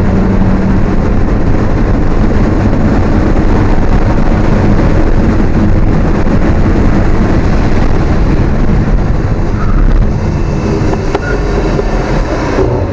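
Alfa Romeo 1750's twin-cam four-cylinder engine, heard from inside the car, running hard at high revs with heavy wind noise. The engine note drops near the end.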